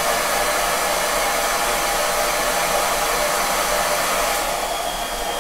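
Hair dryer running steadily on high, blowing warm air to thaw a frozen RV water hose splitter and water filter.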